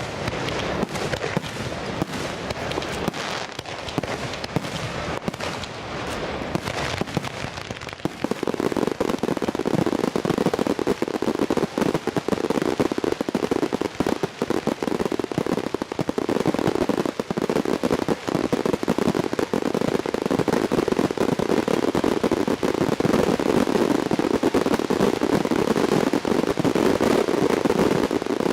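Fireworks going off in a dense, continuous barrage of bangs and crackles, growing louder and denser about eight seconds in.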